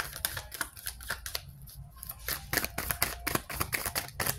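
Tarot cards being shuffled by hand: a quick, uneven run of light clicks and snaps.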